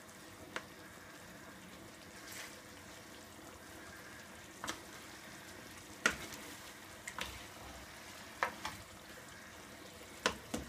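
A black utensil stirring thick creamy tomato sauce with shrimp and lobster pieces in a nonstick frying pan, with a steady low sizzle from the sauce heating toward a boil. About six light knocks sound where the utensil hits the pan.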